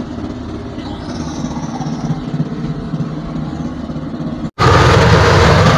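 A passenger bangka's engine running steadily with a low pulsing drone. About four and a half seconds in it drops out for an instant and comes back much louder and closer.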